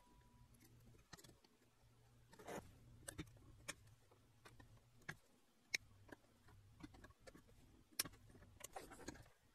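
Flush cutters snipping the leads of newly fitted replacement capacitors on a circuit board's solder side: a scatter of faint, sharp, irregular clicks, the loudest about six and eight seconds in, over a faint low hum.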